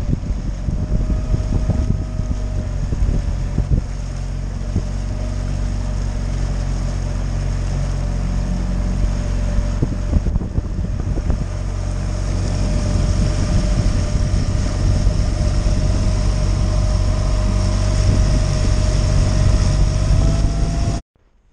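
Small outboard motor running steadily at speed, pushing an inflatable boat through the water, with wind buffeting the microphone. The engine's tone rises slightly near the end, then the sound cuts off suddenly.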